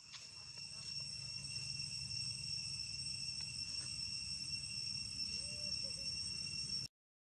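Insects chirring steadily in high, even tones over a low rumble that swells about a second in; the sound cuts off suddenly near the end.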